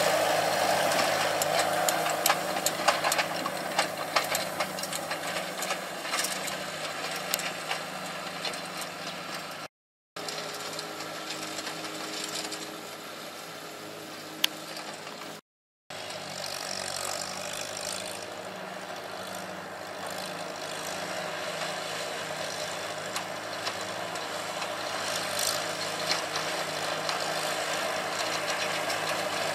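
Farmall tractor engine running steadily while pulling a side-delivery hay rake, with the rake's reel and tines rattling and clicking. It is louder at the start and again near the end and quieter in the middle, and the sound cuts out briefly twice.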